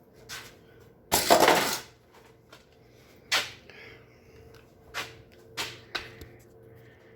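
Handling noises: a loud clattering rustle lasting under a second about a second in, then four short sharp knocks spread out over the next few seconds.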